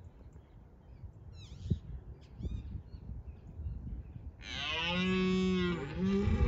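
Red deer stag roaring during the rut: one long, loud roar begins about four and a half seconds in. This is a stag's display to hold his harem against a rival. A few faint small-bird chirps come before it.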